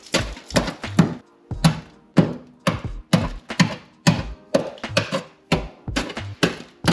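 Hammer blows, about two a second, on the rust-rotted steel floor pan of a BMW E46, knocking out the crumbling metal.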